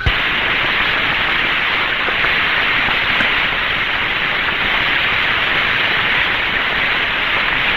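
Steady radio static hiss on the Mercury capsule's open air-to-ground radio channel, cutting in abruptly and carrying no voice: no reply is coming through to the astronaut's call.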